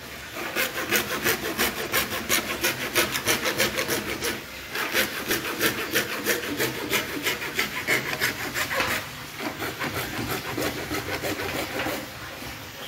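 A hand saw cutting a PVC water pipe in quick, even strokes, about four a second, pausing briefly twice.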